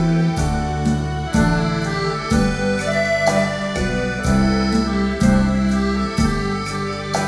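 Recorded music played back through a pair of ProAc Studio 118 bookshelf loudspeakers: an instrumental passage with a stepping bass line and regular percussive hits.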